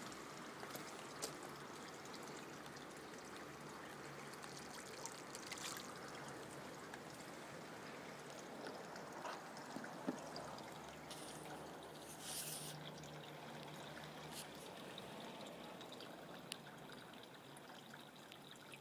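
Faint, steady trickle of water running into a garden pond, with a few faint clicks.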